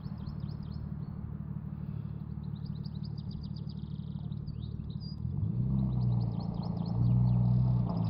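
Nissan R33 Skyline's straight-six engine idling steadily, then pulling away about five seconds in, its note louder and tyres crunching over gravel. Small birds chirp throughout.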